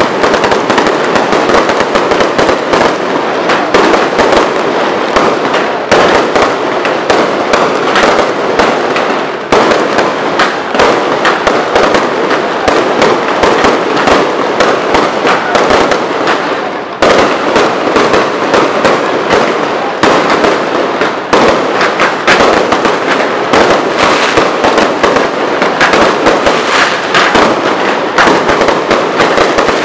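Fireworks display: a dense, unbroken crackle of bursting shells and crackling stars, loud throughout, with a brief lull twice.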